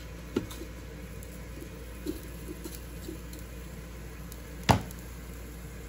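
Tongs clicking and knocking against the Ninja Foodi's air-crisp basket as asparagus spears are laid in beside potatoes. There are a few light taps, then one sharper knock near the end, over a steady low hum.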